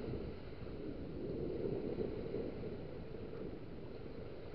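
Wind rumbling on the microphone over small waves washing up a sandy beach, a steady low rush with no distinct events.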